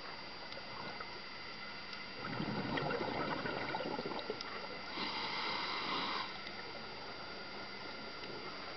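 Scuba diver breathing through a regulator underwater: a gurgling rush of exhaled bubbles from about two seconds in, then a shorter, higher hissing burst around five seconds in, over a steady faint hiss.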